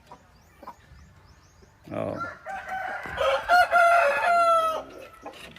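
Gamefowl rooster crowing once, starting about two seconds in and lasting about three seconds, the last note held and falling away.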